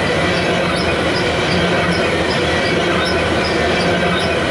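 Covered hopper cars of a Canadian Pacific grain train rolling past close by: a steady, loud rumble of wheels on rail. Light high-pitched ticks from the wheels repeat about twice a second.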